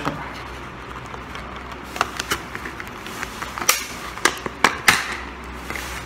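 Clear plastic clamshell packaging of a laptop RAM module being handled and pried open: scattered crackles and sharp plastic clicks, the loudest between about two and five seconds in.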